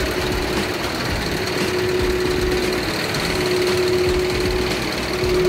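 Scania R620's V8 diesel engine idling steadily.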